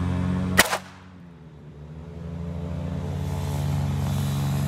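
A single .22 LR shot from a Walther P22 pistol about half a second in, a sharp crack, with steady low tones running underneath.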